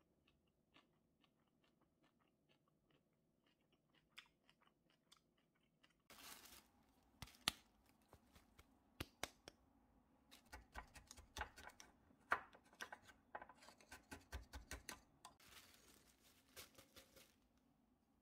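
Faint chewing for the first few seconds, then a thin plastic bag rustling and crinkling while glass spice jars are handled over it, with many sharp clicks and crackles.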